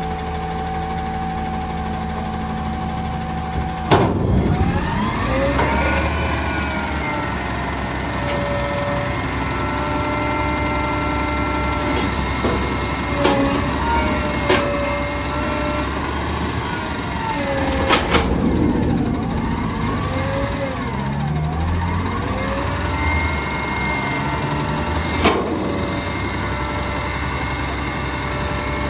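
McNeilus garbage truck idling steadily. After a sharp clank about four seconds in, its engine revs up and down again and again with a whining pitch, and a few more sharp clanks come along the way.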